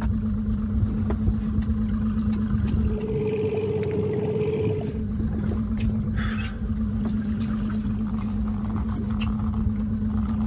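Boat motor running steadily with a constant low hum over a rumble; for about two seconds near the middle the hum jumps to a higher pitch, then drops back. Faint scattered clicks and knocks.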